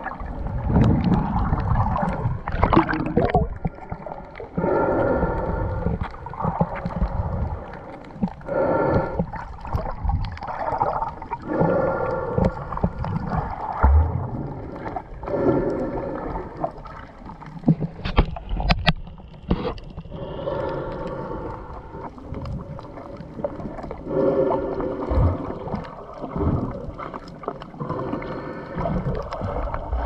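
Muffled underwater noise from a GoPro in its waterproof housing: irregular surges of water gurgling and sloshing every second or two, with a few sharp knocks.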